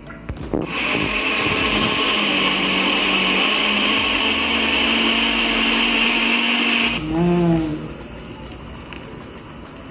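Countertop electric blender running, pureeing cut strawberries with a little water. It starts about a second in, runs steadily and stops about seven seconds in.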